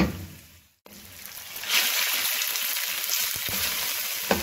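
Raw chicken pieces frying in hot oil in a metal wok: a steady sizzle that swells up after a brief gap about a second in, with a metal spatula knocking against the pan near the end.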